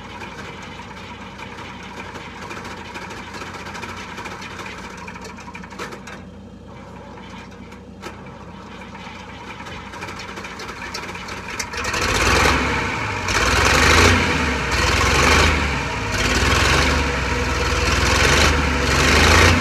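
Zetor Crystal 8011 tractor's diesel engine running cold just after a cold start, a steady idle at first; about twelve seconds in it gets much louder and surges unevenly for the rest of the time.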